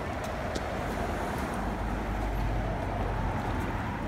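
Steady road traffic noise, a low rumble of cars passing on the street, with a few light clicks over it.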